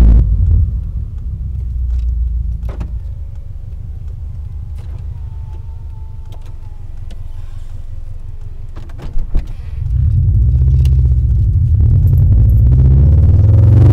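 Exhaust of a 2000 Subaru Impreza 2.5RS's 2.5-litre flat-four, fitted with an aftermarket header, high-flow cat and exhaust. The revs drop at the start and it settles into a pulsing idle, with a couple of sharp clicks just after nine seconds. About ten seconds in it is revved up again and held higher, rising near the end.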